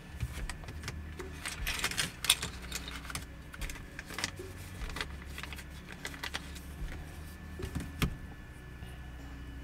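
Hands handling small resin kit parts and their packaging, making irregular light clicks and rustles, busiest about two seconds in. A steady low hum runs underneath.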